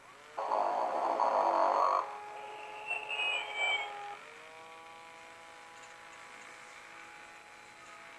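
Sing and Snore Ernie plush toy's recorded snore through its small speaker: a loud raspy snore, then pitched tones with a brief warbling chirp about three seconds in, settling into a long steady tone.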